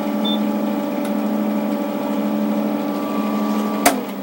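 Cooling-water pump of an ND:YAG laser unit running with a steady hum, which the owner says doesn't sound quite healthy. There is a short high beep just after the start, and near the end a click as the unit is switched off and the hum dies away.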